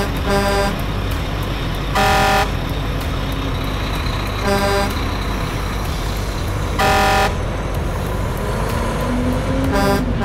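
Truck horn sound effect honking in short blasts every two or three seconds over a steady engine rumble, dubbed over toy fire trucks pushed by hand.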